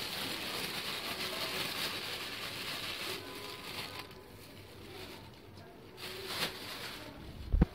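Plastic spatula stirring a wet rice, tomato and herb stuffing in a pot: a soft, steady rustling that drops away about three seconds in, with a sharp thump near the end.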